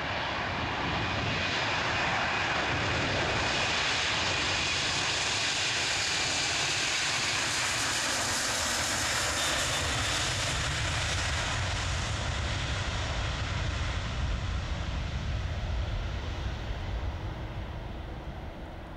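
Delta Air Lines Airbus A330 twin-engine jet on its takeoff roll and lift-off, engines at takeoff thrust: a loud, steady jet rush with a faint whine in it, fading over the last couple of seconds.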